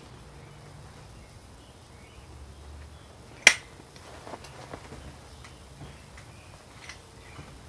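Bullet mold being worked by hand: one sharp metallic click about three and a half seconds in, then a few lighter clicks and taps as the mold and its freshly lubed sprue plate are handled.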